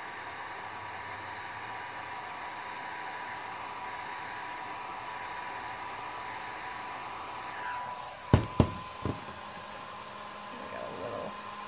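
Electric heat gun blowing steadily with a thin whine, heating a plastic shell cup to soften it for shaping. About eight seconds in, two loud knocks and a lighter third one as the gun is set down on the wooden bench.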